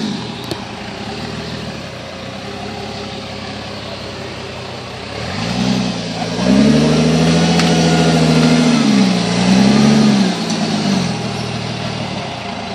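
Jeep rock crawler's engine running at low throttle, then revved up in pitch about halfway through as the rig climbs over a log ledge. It holds the revs, dips briefly, gives a second push and settles back down near the end.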